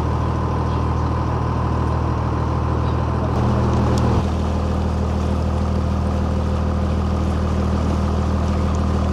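Engine of the boat being ridden, running at a steady speed: a low, even hum heard from aboard, briefly louder with a slight change in tone about four seconds in.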